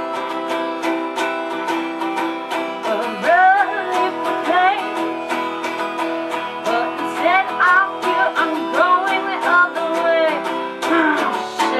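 Acoustic guitar strummed in a steady rhythm, with a voice singing a wordless, sliding melody over it.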